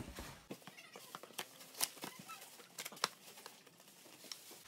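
Cardboard box being opened by hand: flaps and cardboard inserts rustling and scraping, with scattered clicks and a couple of sharper snaps about two and three seconds in.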